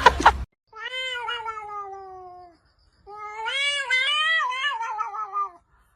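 A domestic cat meowing twice in long drawn-out calls, the first sliding down in pitch, the second wavering up and down.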